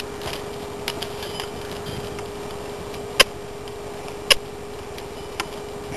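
A few sharp clicks over a steady faint hum and hiss; two loud ones come about a second apart, past the middle.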